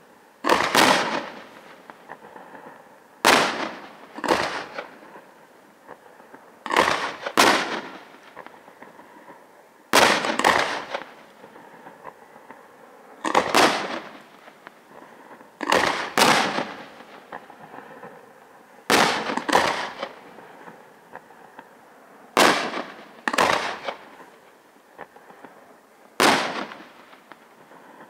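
Aerial firework shells bursting in a display: pairs of sharp bangs, a new pair about every three seconds, each bang dying away quickly.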